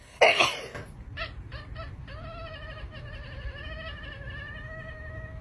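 Cat calling: a loud cry just after the start, a few short meows, then one long drawn-out meow held steady for about three seconds.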